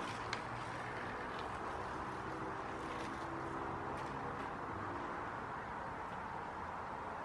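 Toy rubber-band-powered plane's propeller whirring faintly as it circles on its tether, over a steady outdoor background hiss, with a light click just after the start.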